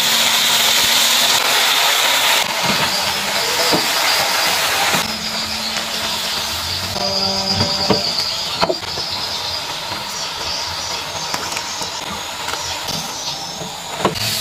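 Water spinach sizzling as it is stir-fried in a hot wok. The sizzle is loudest over the first couple of seconds and settles into a softer steady hiss. There are a couple of spatula knocks against the pan about eight seconds in.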